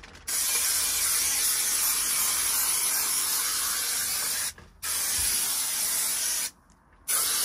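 Aerosol can of Trim-Fix spray adhesive hissing as it sprays, in three bursts: a long one of about four seconds, a shorter one of about a second and a half, and a third starting near the end.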